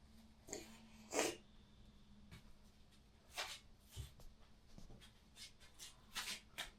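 Scattered short rustles and breathy noises, the strongest about a second in, over a faint steady hum.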